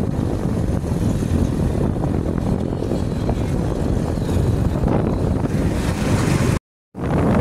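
Wind rumbling on the microphone over the road noise of a moving vehicle, steady throughout; the sound cuts out completely for a moment near the end.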